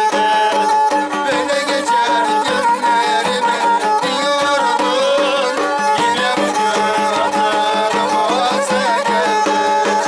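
Turkish folk music: a small pear-shaped bowed fiddle plays a wavering melody over steady hand-struck beats on a large davul drum, with a man's singing voice.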